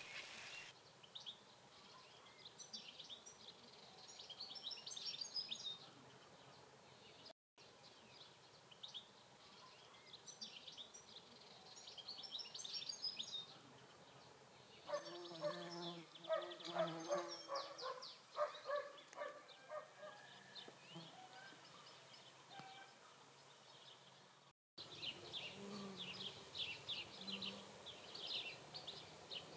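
Rural birdsong: small birds chirping and singing throughout, with a run of lower farmyard poultry calls about halfway through. The sound cuts out for a moment twice.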